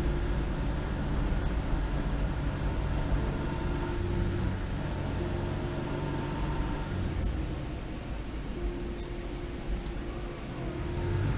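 1989 Mitsubishi Pajero driving along beach sand, its engine and tyres making a steady low rumble. A few short high squeaks come in over the last few seconds.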